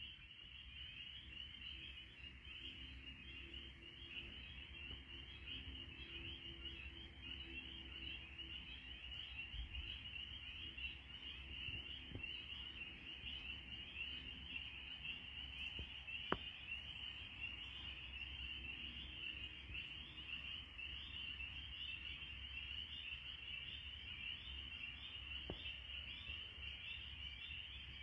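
Chorus of spring peepers: many high, short peeps overlapping into a steady shrill chorus.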